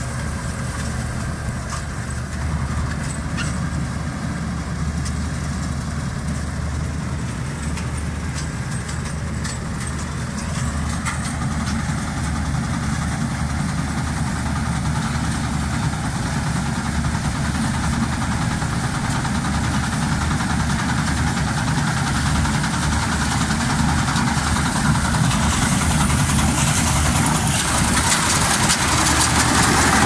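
Old combine harvester running steadily while harvesting rice: a low engine hum that grows louder as the machine approaches. In the last few seconds a higher rushing noise from the machinery builds up.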